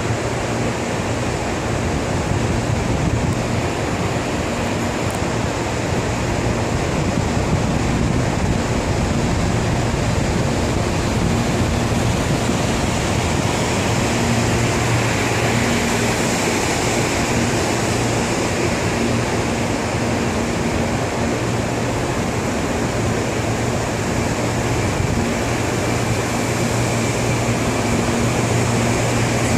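CAF-built CPTM series 7000 electric multiple unit rolling slowly past at close range: a steady rolling noise of wheels on rail, with a low hum that comes and goes.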